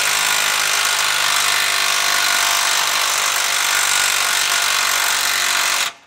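Milwaukee M12 cordless impact wrench hammering steadily on a torsion bar adjusting bolt with a 19 mm socket, cranking the bolt in to raise the front suspension. It stops abruptly near the end.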